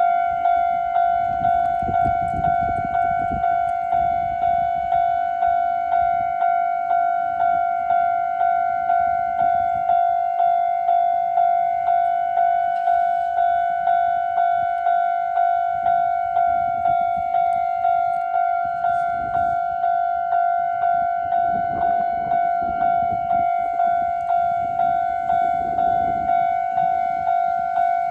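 Japanese railway level-crossing alarm ringing its standard electronic bell tone. The strikes repeat evenly at about three every two seconds, a little slower than usual, each fading before the next.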